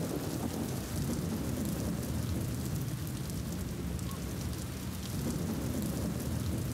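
Steady low rumbling noise with a fainter hiss above it, without pitch or rhythm.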